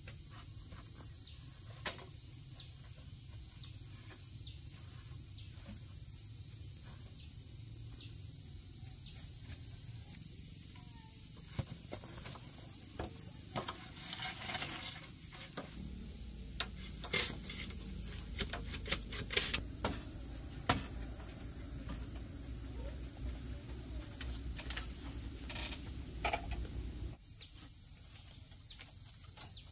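Steady, high-pitched insect chorus in the background, with scattered knocks and clicks in the second half.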